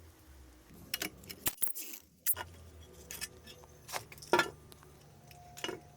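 Irregular metallic clicks and clinks of hand tools working on motorcycle parts during disassembly, with the sharpest clink a little over four seconds in.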